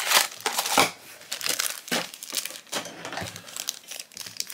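Black foil pin wrappers crinkling and crackling as they are pulled from a cardboard blind box and opened, in irregular bursts, loudest in the first second.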